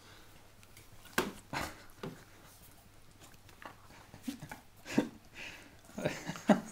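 Small dog making short, sudden noises while tussling with a kitten, mixed with scuffling and bumps. There is a first group about a second in, more through the middle, and the loudest cluster near the end.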